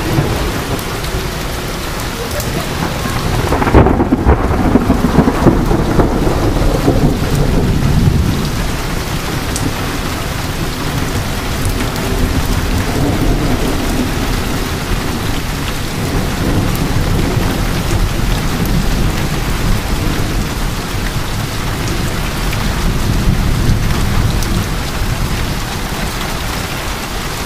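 Heavy thunderstorm rain pouring steadily. About four seconds in, a loud rumble of thunder sets in and rolls on for several seconds, with weaker rumbling later on.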